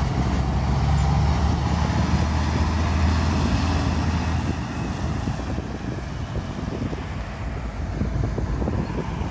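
Articulated lorry's diesel engine running as it drives past and away, a strong low engine hum that fades after about four or five seconds, leaving tyre and road noise.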